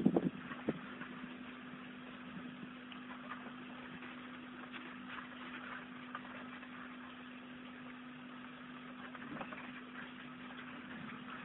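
A steady low hum with faint, scattered ticks and scratches.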